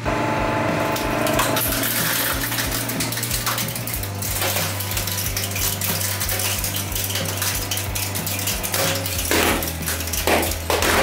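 Hydraulic press crushing a bundle of plastic disposable gas lighters: dense cracking and clattering of plastic and metal parts, with a few louder sharp cracks near the end.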